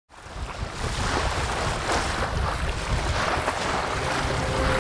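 Wind and rushing water as a sailing yacht's bow cuts through choppy waves, a steady wash that fades in at the start. Near the end a low steady tone and a higher held tone come in over it.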